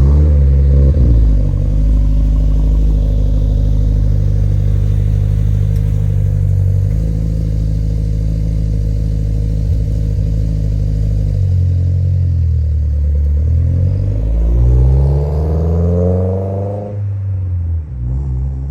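2022 Subaru WRX turbocharged flat-four exhaust through a MAPerformance catback and catted J-pipe, running at steady revs with a few steps in pitch, then revving up for about three seconds near the end before dropping off suddenly and fading.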